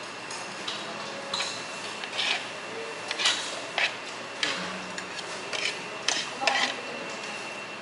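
Spoons clinking and scraping in a cup of halo-halo, stirring through the shaved ice: a string of short, irregular clicks over a steady background hum.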